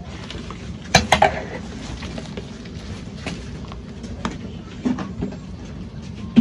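Large aluminium pot of water boiling hard over a wood fire, giving a steady low rumble. A sharp metallic clink with a brief ring comes about a second in, followed by a few lighter knocks.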